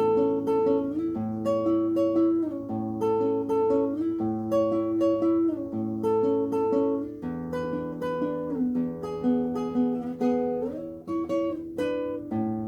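Solo acoustic guitar played fingerstyle: a plucked melody in steady, flowing notes over ringing bass notes, with a few notes sliding into the next.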